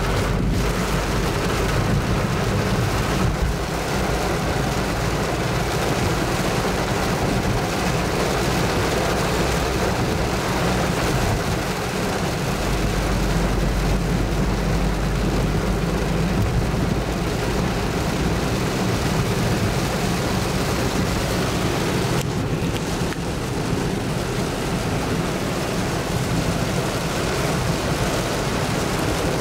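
Heavy rain drumming on a car's roof and windshield, heard from inside the cabin over the steady low rumble of the moving car.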